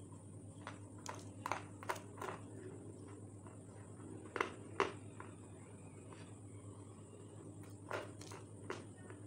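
Close-up eating sounds: scattered crisp crunches and mouth clicks as a white, crumbly lollipop snack is bitten and chewed, the loudest a pair about four and a half seconds in. A steady low hum and a faint high whine run underneath.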